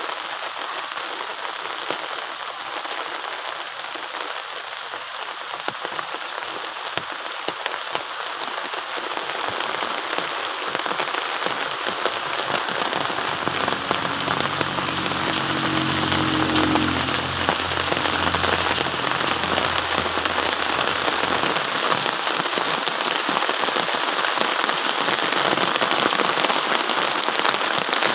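Steady rain falling, growing heavier and louder through the first half. A faint low hum rises and fades in the middle.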